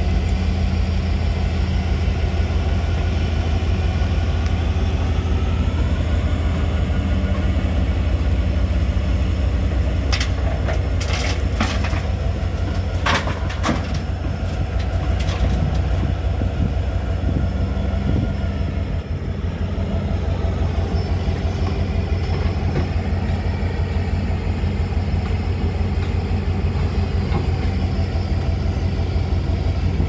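Hyundai Smart 210 crawler excavator's diesel engine running steadily under load while it digs and loads a dump truck, with a run of sharp knocks and clanks near the middle.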